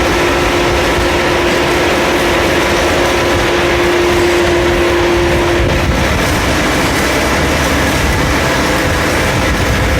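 CNC machine running with a steady mechanical noise and a held tone that stops about six seconds in, as other, higher tones come in.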